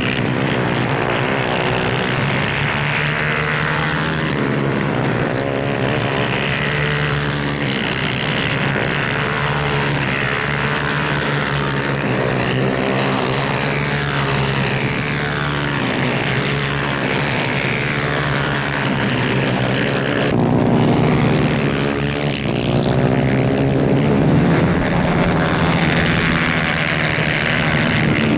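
Several 250cc superkart engines racing at high revs. Their pitch repeatedly climbs and drops back as they accelerate and shift, and the sound gets a little louder about two-thirds of the way through.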